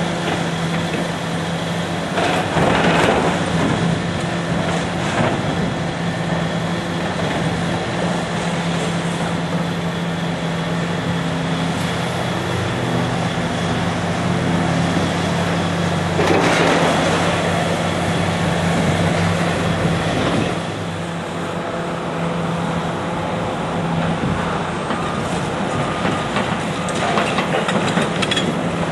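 Diesel engine of heavy demolition machinery running steadily, with two louder stretches of rough, noisy clatter, about two seconds in and again around the middle.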